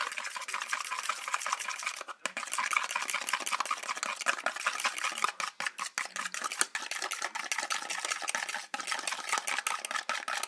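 Egg and milk being beaten with a metal spoon in a plastic container: fast, continuous clicking and scraping of the spoon against the sides and bottom, stopping for an instant a few times.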